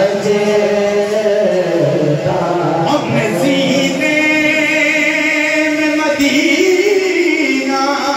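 Men singing a naat, an Urdu devotional song, into microphones without instruments. The lead voice holds long, wavering notes.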